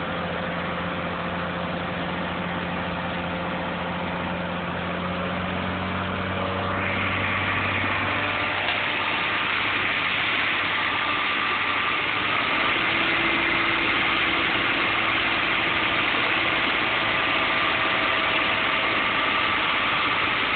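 BMW M52B28 2.8-litre straight-six idling steadily at the tailpipe shortly after its first start, the exhaust note growing louder and brighter about seven seconds in. It is blowing thick white smoke, which the owner takes for oil simply burning off.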